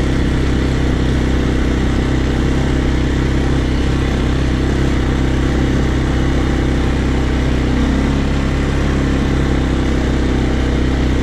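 Small farm vehicle's engine running steadily under way in low gear, with a constant low drone and rattle that hold even throughout.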